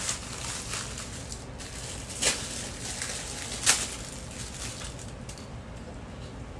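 Clear plastic packaging of small fidget toys being handled and opened, a quiet rustle broken by two sharp crinkles, about two and a quarter and three and three-quarter seconds in, the second the louder.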